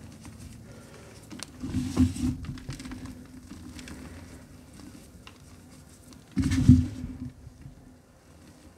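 Reformed gym chalk being crushed and crumbled by hand in a plastic tub: two louder bursts of crunching with soft thuds, about two seconds in and again near six and a half seconds, with faint crumbling and sifting between them.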